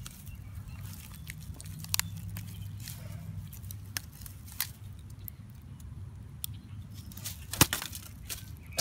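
Scattered small clicks and crackles of a smashed phone's metal frame and broken pieces being gripped and bent by hand, with the sharpest click a little past three quarters of the way through, over a low rumble.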